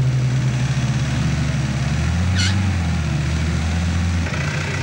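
Off-road 4x4's engine running steadily at low revs as it crawls over rough ground, its note dropping a little about two seconds in. A brief high chirp sounds just after the drop.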